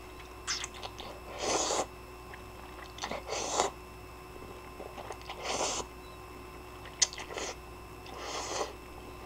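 A person slurping ramen noodles from a bowl, in about six short slurps spaced a second or two apart.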